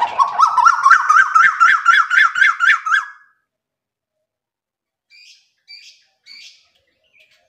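Male Asian koel calling: a fast run of loud whistled notes, about five a second, rising in pitch over about three seconds and then breaking off. Three faint, short, higher chirps follow near the end.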